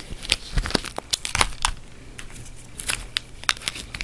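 Small plastic wax-melt tubs being handled: an irregular string of light clicks and taps as the containers are touched, picked up and set down.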